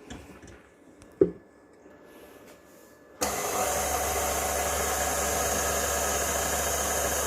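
Electric beater whipping cream: near quiet apart from a single click about a second in, then the motor switches on suddenly about three seconds in and runs steadily with a low hum.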